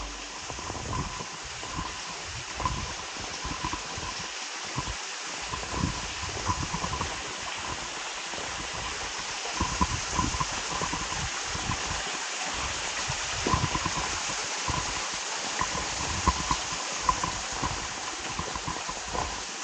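Mountain stream running over rocks: a steady rush of water, with scattered small ticks and low knocks.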